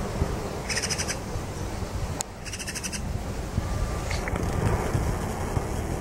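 Eurasian magpie giving its harsh rattling chatter in two short bursts, about a second in and again around two and a half seconds in.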